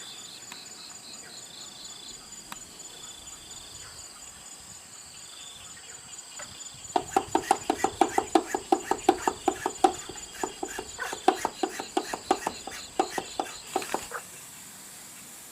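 Insects, crickets among them, trilling steadily throughout. About halfway in, a fast run of sharp knocks, about six a second, starts and keeps going for roughly seven seconds, louder than the insects, then stops.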